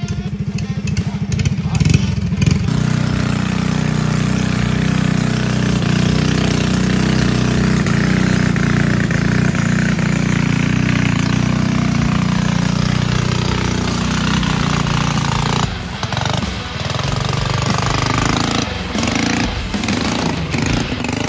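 Small single-cylinder minibike engine running hard under load on a steep rocky hill climb, a steady drone that eases off and turns uneven about sixteen seconds in.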